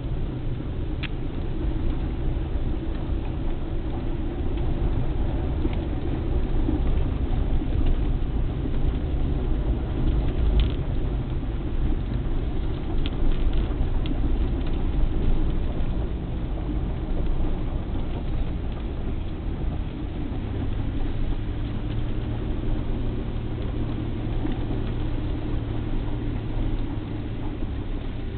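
Car engine and tyre rumble heard from inside the cabin while driving along a paved road, steady throughout, with a few faint clicks and a steadier low hum setting in about two-thirds of the way through.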